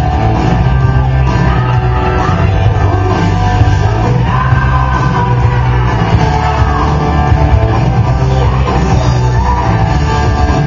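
Loud rock music with a singing voice, playing continuously with a steady heavy bass line.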